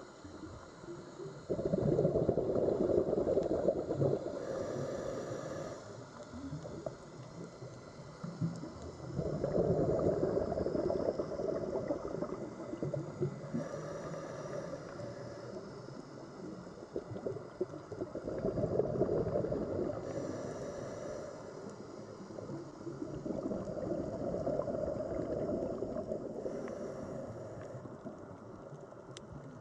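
Sea water sounds in slow swells, rising and falling about every eight seconds, four surges in all, with faint high tones coming and going between them.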